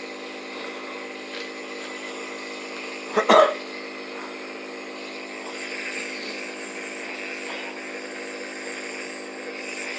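A man coughs once, a short double cough about three seconds in, in the middle of an asthma attack in which he is coughing up blood. Under it runs a steady droning hum like an idling engine or motor.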